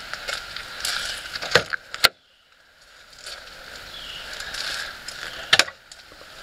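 A steady outdoor insect chorus, broken by sharp clicks and knocks from the van's rear door and its latch being handled: two about one and a half and two seconds in, after which the sound cuts out for about a second, and another close pair about five and a half seconds in.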